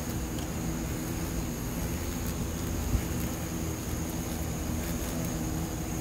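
Asian giant hornets stuck on a glue trap, buzzing their wings in a steady low drone over a low rumble. A thin high whine runs underneath, and there is a single sharp tap about three seconds in.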